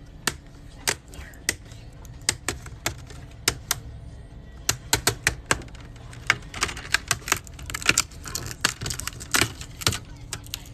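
Plastic clips of an Asus ROG laptop's screen bezel clicking and snapping as the bezel is pried off. The clicks are scattered at first, then come thicker and faster in the second half, with a run of dense crackling.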